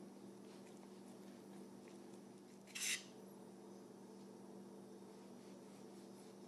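A kitchen knife cutting through a rolled tortilla pinwheel on a cutting board, heard as one short cut about three seconds in, over a faint low steady hum.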